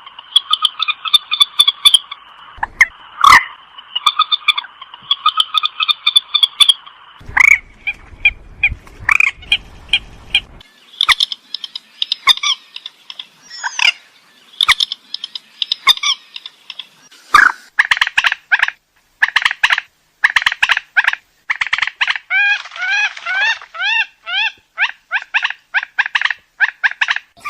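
Rail (burung mandar) calls from a recording used to lure the birds: harsh notes repeated in quick runs, one call overlapping the next without pause. A low rumble runs underneath for a few seconds about a third of the way in.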